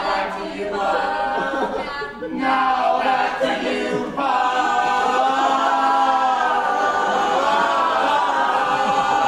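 Several voices, men and women, singing together unaccompanied in long held notes. The singing breaks off briefly about two seconds in and again about four seconds in, then holds one long chord to the end.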